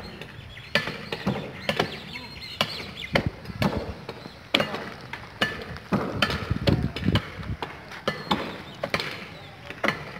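Wood being chopped: sharp, irregular strikes of a blade into fallen tree branches, roughly one or two a second.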